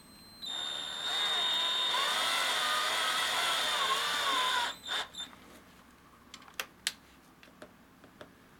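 Cordless drill-driver spinning a screw-in stud into a shoe's rubber sole: one run of about four seconds with a steady high whine, its pitch wavering under load as the stud seats. Then two brief blips of the motor and a few sharp clicks.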